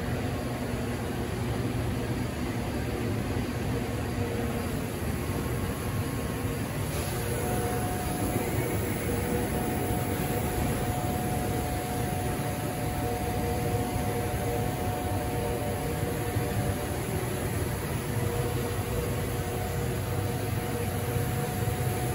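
Steady low hum and hiss of machinery in a tire shop service bay, with a faint steady tone joining in about seven seconds in.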